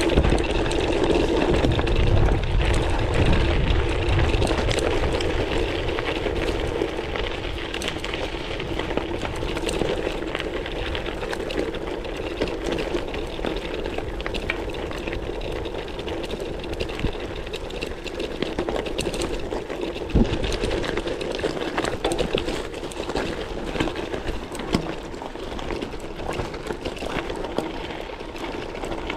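Specialized gravel bike rolling over a loose, stony dirt track: the tyres crunch on the gravel and the bike rattles, with a heavier rumble in the first few seconds and one sharp knock about two-thirds of the way in.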